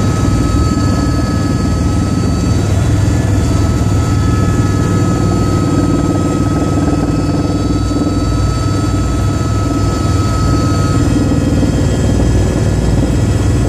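Helicopter turbine and rotor noise heard from inside the cabin in flight: a steady, loud drone with a thin high whine held over it.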